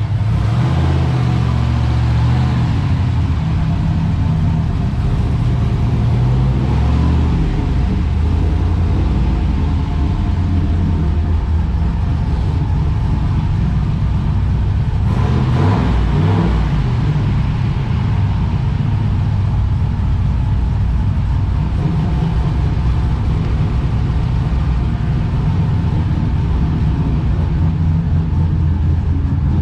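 Turbocharged LS1 V8 engine of an E36 BMW running with a deep, steady low note, its revs shifting now and then.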